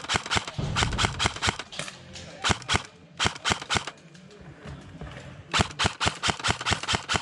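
Airsoft rifle firing in several rapid bursts of shots, with short pauses between them and the longest burst near the end.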